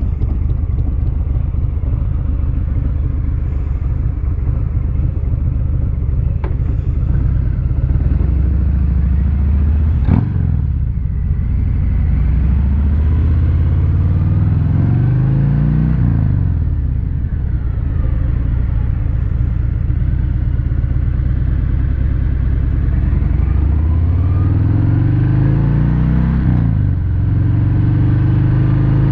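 Harley-Davidson Fat Bob's 114 cubic inch Milwaukee-Eight V-twin running through Rinehart slip-on mufflers: a steady deep idle, revved up and let fall back a few times. The tone is deep and throaty.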